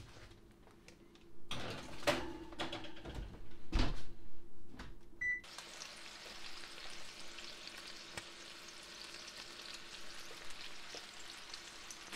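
Oven door being shut with a few knocks and clatters, then a short beep from the oven's keypad about five seconds in. After that comes a steady faint hiss.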